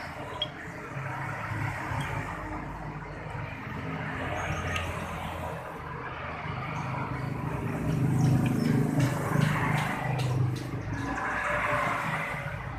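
Car engine running with its piston-type AC compressor engaged, giving a steady low growl that gets a little louder about eight seconds in. Such a growl from a piston compressor is often caused by worn balls or metal bushings inside it.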